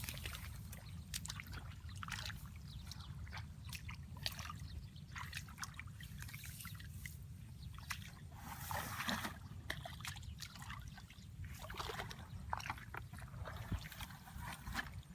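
Shallow water sloshing and splashing, with irregular small splashes, drips and trickles over a steady low rumble; the splashing is busiest around the middle and again a couple of seconds later.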